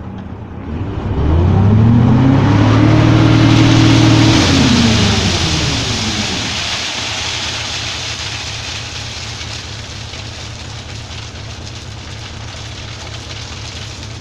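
Hino FS Ranger concrete mixer truck's diesel engine revved up from idle about a second in, held for about three seconds, then let fall back to idle. A strong hiss rises with the rev and fades slowly afterwards.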